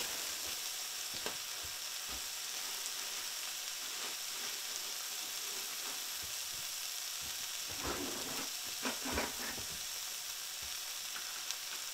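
Eggs and ham frying in butter in a skillet, giving a steady sizzle. A few faint knocks come about eight to nine seconds in.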